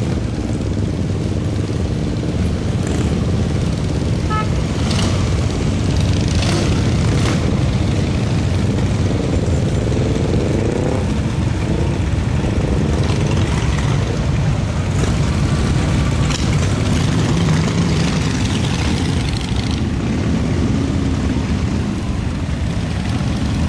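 A steady stream of cruiser and touring motorcycles riding past, their engines running together in a continuous loud rumble. Single bikes' engine notes rise and fall as they go by.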